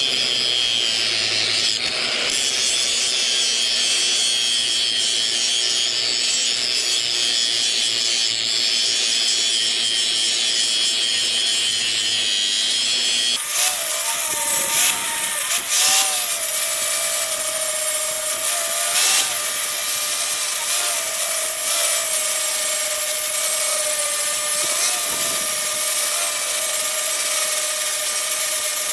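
Power grinder working on the steel of an excavator bucket, a steady harsh grinding. About halfway through the sound changes abruptly to a brighter grind with a whine that wavers in pitch.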